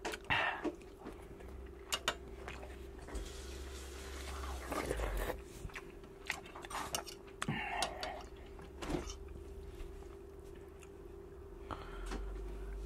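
Close-up chewing and biting of a mouthful of salmon larb and rice, with the spoon and fork clicking and scraping against a ceramic plate and bowl. A faint steady hum sits underneath.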